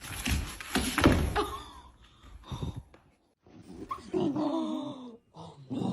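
A dog growling and snarling in loud, rough bursts with short breaks between them.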